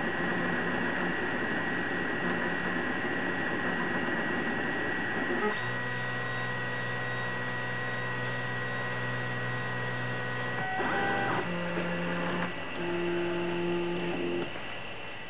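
Prusa i3 3D printer at work: a steady whir with a thin high tone from its cooling fans. About five seconds in, the stepper motors join with held pitched tones, which jump to new pitches a few times as the axes move.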